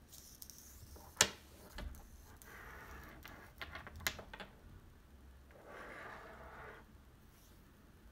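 A large bead and cord being handled: a few sharp clicks and taps, the loudest about a second in and a cluster around four seconds as the bead is set on the table, with two short stretches of soft rustling from the cord sliding and hands moving.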